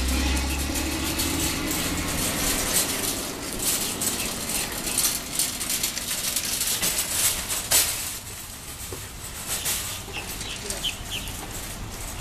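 A passing car's rumble fading out over the first couple of seconds, then irregular crackling and rustling noise with a sharp peak about eight seconds in, and a few short high chirps near the end.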